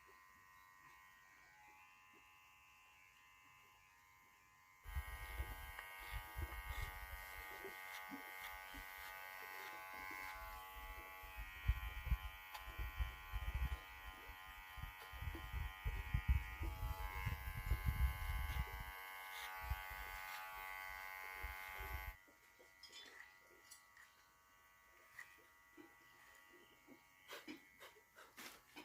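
A small motor buzzing steadily, starting suddenly about five seconds in and cutting off about twenty-two seconds in, with irregular low thumps beneath it. Before and after it there are only a faint hum and scattered clicks.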